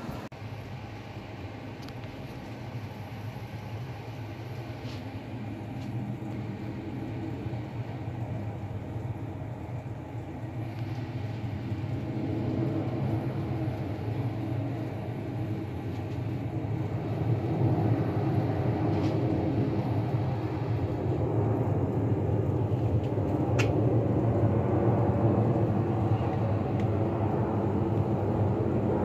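Jet airliner passing overhead: a steady engine rumble that grows louder in two steps, about halfway through and again a few seconds later, with a few faint clicks.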